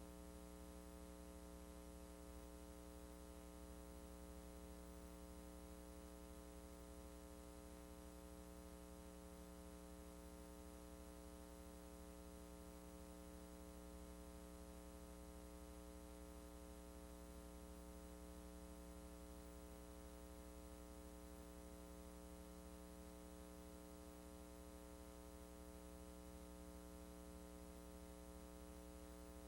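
Faint steady electrical hum with a stack of even overtones over light hiss: the empty audio track of a VHS transfer that carried no recorded sound.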